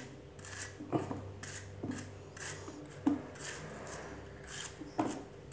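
A machete slicing a soft banana stem core into thin rounds against a wooden board, about two short crisp cuts a second, a few of them ending in a sharper knock on the board.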